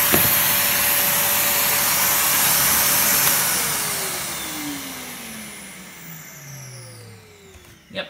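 Henry HVR200 cylinder vacuum cleaner running with a steady whoosh and whine. About three seconds in it is switched off, and the motor spins down, its whine falling in pitch and fading away. The owner judges the motor to be in excellent, healthy shape.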